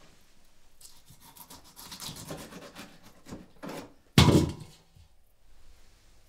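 Quick scratchy rubbing strokes for a few seconds, then one loud, dull wooden-sounding thump about four seconds in.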